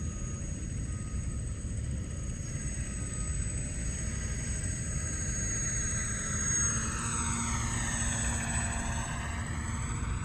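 Model Magnus-effect twin rotorcraft flying past, its spinning rotors whirring over a steady low rumble. In the second half the whir sweeps down in tone and back up as the craft passes close.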